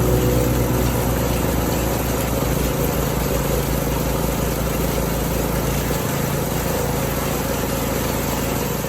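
Small engines running steadily at an even pitch at the firewood-splitting setup, with the end of background music fading out at the start.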